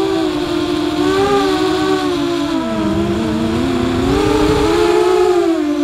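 FPV drone's electric motors whining, several close pitches beating against each other. The pitch sags as the motors slow about halfway through, then climbs again as they speed up.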